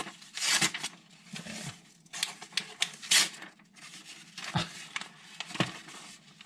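A deliberately dulled carbon steel kitchen knife dragged through a sheet of newspaper in several short strokes. The paper rustles and crinkles instead of slicing cleanly, because the edge has no bite. Two sharper ticks come near the end.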